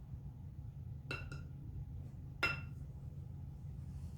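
A spoon clinking against a container while scooping glue: two quick clinks about a second in, then a single louder, ringing clink about halfway through. A steady low hum runs underneath.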